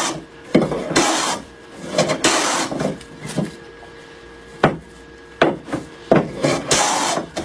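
Hand plane shaving a board: several noisy strokes of about half a second to a second each, trimming an out-of-square board down true. A pause falls about midway, then two sharp knocks and more strokes.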